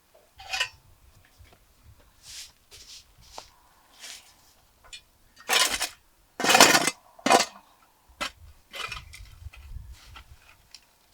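Kitchen dishes and utensils clinking and clattering in short, scattered knocks, with a few louder clatters and scrapes about halfway through.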